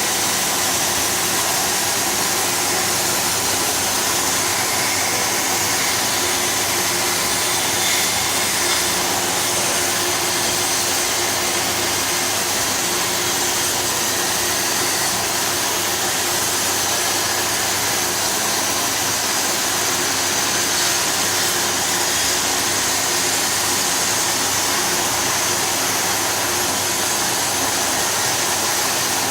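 CNC plasma cutter running a cut: a loud, steady hiss with a faint hum beneath it that starts just before and runs on without a break.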